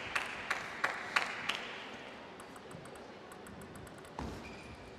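Table tennis rally: a celluloid-type ping-pong ball clicking off rubber paddles and the table, about three hits a second, stopping about a second and a half in. Later comes one dull thud.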